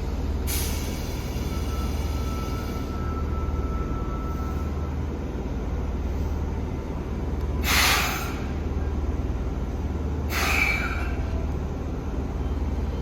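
Fukuoka City Subway 1000N-series train at a station, a steady low rumble with three short hisses: one just after the start, the loudest about eight seconds in, and another about ten and a half seconds in.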